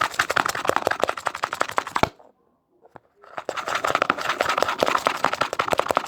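Glue and dish detergent being stirred fast in a container: a rapid, dense clicking and scraping of the utensil against the container as the mix is whipped into a foam. It breaks off abruptly about two seconds in, with a second of near silence, then resumes.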